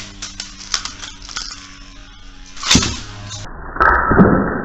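Beyblade spinning tops clicking against each other in a plastic stadium, with a sharp clash about two and a half seconds in. Past the middle the sound turns muffled and noisy.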